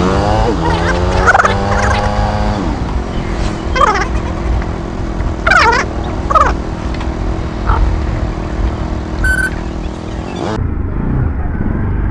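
Motorcycle engine running while riding along a street, its pitch rising and then falling over the first couple of seconds before settling into a steady rumble with wind on the microphone. A few short wavering cries sound over it mid-way, and a brief high beep comes about nine seconds in; the sound turns dull about ten and a half seconds in.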